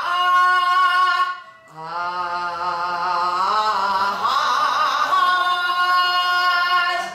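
A woman's voice singing long held open-mouthed notes in Korean traditional (pansori) vocal style, with a wide wavering vibrato. About a second and a half in she breaks off briefly for breath, then holds a second long note that slides up in pitch and sustains.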